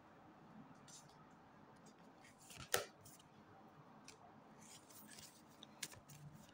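Tarot cards being handled on a table: one sharp card snap almost three seconds in, then a few faint light ticks near the end, over near silence.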